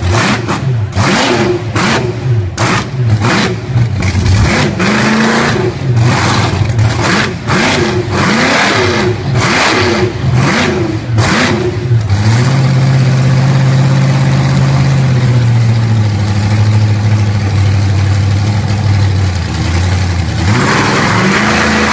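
JCB-GT backhoe's 571-cubic-inch Chevrolet big-block V8 being blipped up and down over and over for about twelve seconds. It is then held at a steady speed for about eight seconds and revs up again near the end.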